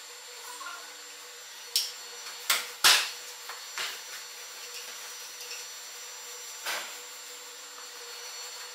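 A handful of sharp knocks and clanks from hands-on work among the stationary steam engine's pump machinery, the loudest about three seconds in, over a steady background hum.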